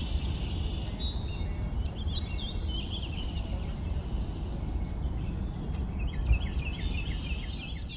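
Small birds chirping in short, high, downward-sweeping calls, with a quick run of chirps near the end, over a steady low outdoor rumble.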